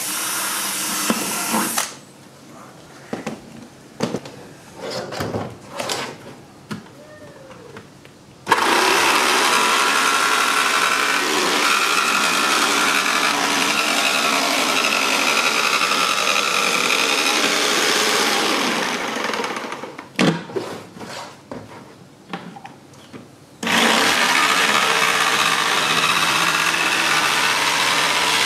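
A cordless drill bores a hole through the corner of a plastic bucket for about two seconds. After some handling knocks, a jigsaw cuts through the bucket's plastic wall in two long steady runs, stopping for a few seconds in between.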